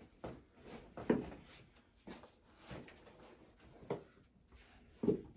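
A few scattered soft knocks and rustles of a person moving about on a padded treatment table, slipping shoes off and turning onto his back.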